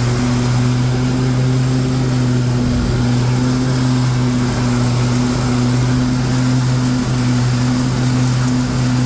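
24 hp Kohler engine of a Troy-Bilt Mustang XP zero-turn mower running steadily at high throttle with the mowing blades engaged, a constant loud hum with no change in speed.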